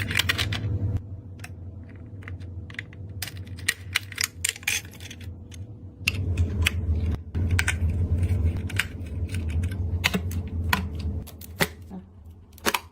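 Irregular sharp clicks, taps and plastic snaps of computer parts being handled and fitted during a PC build, over a steady low hum.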